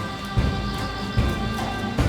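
Background music with a steady low beat and held tones.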